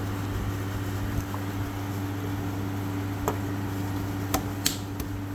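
Steady machine hum with three short, sharp clicks, the last two close together near the end.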